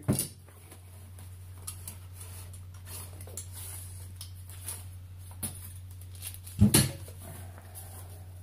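Handling of a fabric bow carry case and its straps: scattered light rustles and taps, with two sharp knocks close together about two-thirds of the way through, over a steady low hum.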